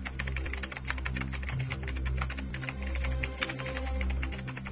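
Fast, irregular clicking of computer keyboard typing, starting suddenly, over background music with sustained low bass notes.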